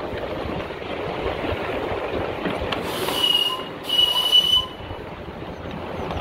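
Miniature steam locomotive's whistle giving two short blasts about three seconds in, a high steady tone with a hiss of steam, sounded for a whistle board. Underneath, the steady rumble of the train running along the track.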